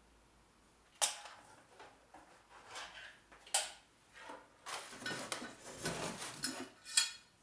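Things being handled in a cardboard box. There are three sharp knocks spaced a couple of seconds apart, with rustling and scraping of cardboard, busiest in the second half.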